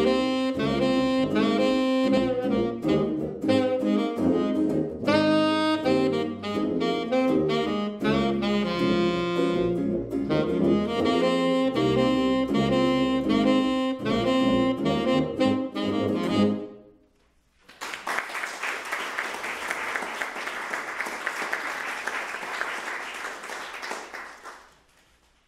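Small jazz group of tenor saxophone, hollow-body electric guitar and tuba playing, with the tenor sax on the lead line; the music stops about 17 seconds in. About a second later the audience applauds for several seconds, the clapping fading out near the end.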